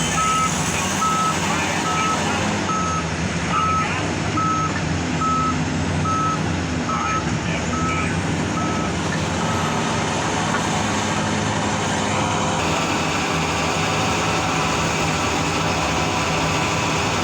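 Heavy mining haul truck's reversing alarm beeping about once a second, stopping about nine seconds in, over the steady drone of large diesel engines.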